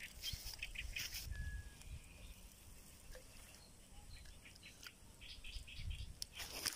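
Faint outdoor background: scattered light clicks and rustles over a low wind rumble, with one short bird chirp about a second and a half in and a denser patch of clicks near the end.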